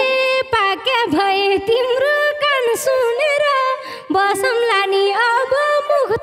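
A woman singing a Nepali folk dohori line solo into a microphone, with ornamented, bending melody. The instruments drop out, so the voice is unaccompanied until the band comes back in just after.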